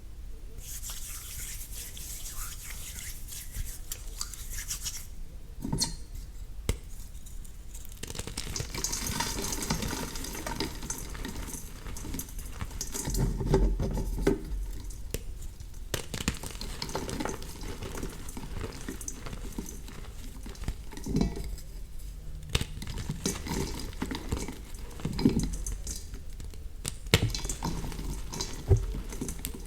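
Re-formed gym chalk blocks being crushed and crumbled by hand: a continuous dry crunching and scraping, with sharp cracks as pieces break.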